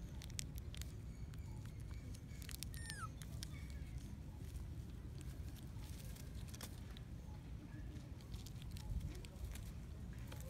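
Scattered crinkles and clicks as a baby long-tailed macaque chews and handles a plastic snack wrapper, over a steady low rumble. A short falling chirp comes about three seconds in.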